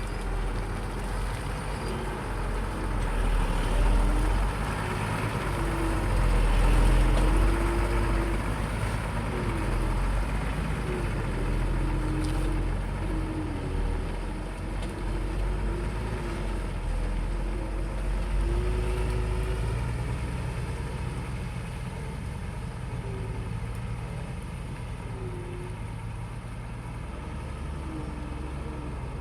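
Excavator's diesel engine running steadily with a faint wavering whine, swelling louder twice in the first eight seconds or so as the machine works, then easing off.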